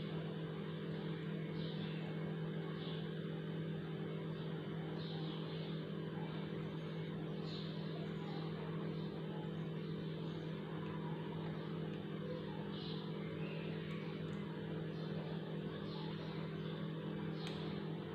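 Steady low hum of a running kitchen appliance, with small faint soft noises every second or two as cream is piped from a bag.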